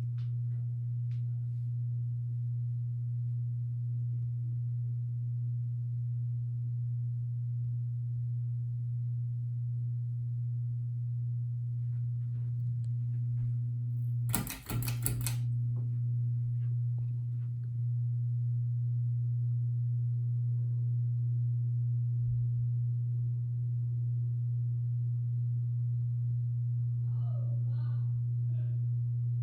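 Hampton Bay Minuet II ceiling fan's motor running with a steady low hum. About halfway through comes a brief clattering burst.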